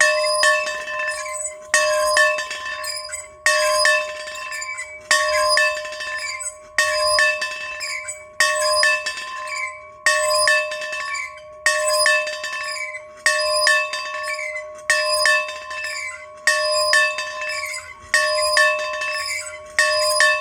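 A bell rung steadily over and over, about a dozen even strokes roughly one every second and a half to two seconds. Each stroke rings out in a clear two-note tone with bright jangling overtones and dies away before the next, with small clinks in between.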